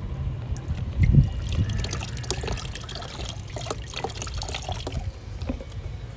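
Liquid trickling and pouring, with small scattered clicks and knocks: a solution being poured over a potted plant.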